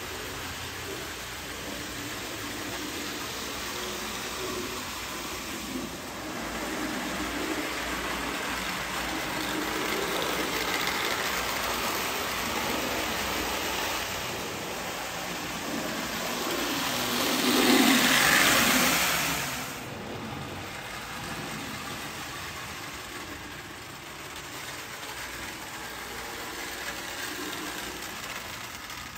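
Marx tinplate Army Supply Train running on three-rail tubular track: a steady metallic rumble and clatter of the train rolling. It swells to its loudest as the train passes close, about two-thirds of the way in.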